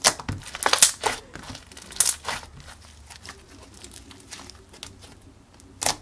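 Thick cream cheese slime with blue foam balls being poked, squeezed and stretched by hand. It gives a run of sharp clicks and pops in the first second, a couple more around two seconds in, softer squishing through the middle, and another loud pop near the end.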